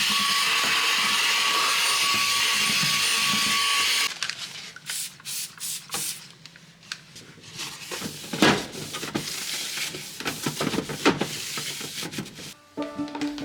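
A small electric motor running with a steady high whine, cutting off suddenly about four seconds in; then irregular clicks, knocks and rubbing of household items being handled.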